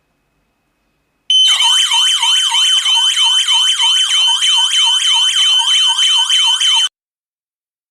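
Wireless security alarm system's siren sounding: a loud electronic warble sweeping up and down about three or four times a second over a steady high tone. It starts about a second in and cuts off suddenly near the end.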